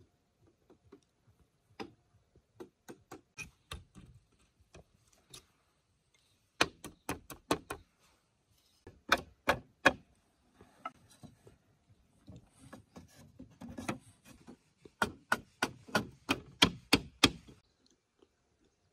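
Bamboo being chopped with a blade: sharp wooden knocks, a few spaced strokes at first, then quick bursts of several chops, the longest near the end, with some scraping and rubbing on the wood between them.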